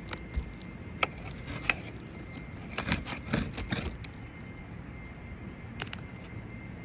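Scattered sharp clicks and knocks, with a quick cluster of them about three seconds in, over steady background noise.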